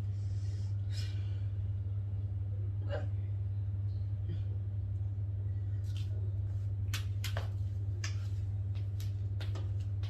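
A woman hiccuping, then several sharp clicks in the second half, over a steady low hum.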